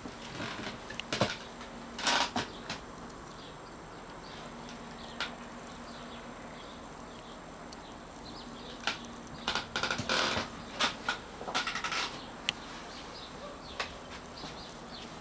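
Scattered light knocks and clicks, busiest about nine to twelve seconds in, over a faint steady hum.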